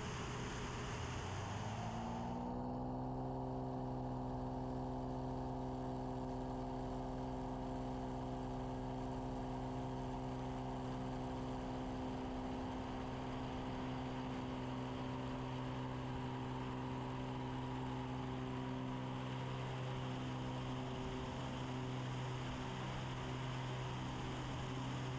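Propeller and piston engine of a single-engine Cessna jump plane droning steadily. The pitch rises about two seconds in as power comes up, then holds.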